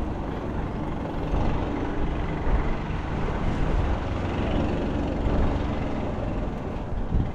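A small fishing boat's engine running steadily as the boat moves, with a rumbling drone.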